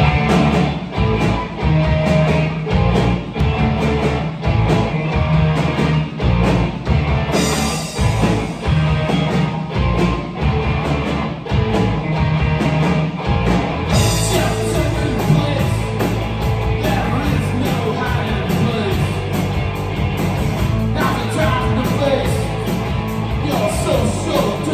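Live rock band playing loud, with electric guitar, bass guitar and drum kit. The cymbals wash in briefly about seven seconds in and come back to stay from about fourteen seconds in.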